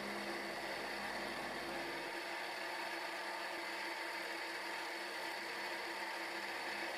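Milling machine running steadily, a faint even whir with a few steady tones, as its end mill side-cuts a block of aluminium.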